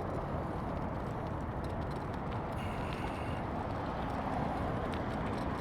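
Steady low rumble of outdoor traffic noise from nearby commuter traffic on the highway, with a faint short high squeak about halfway through.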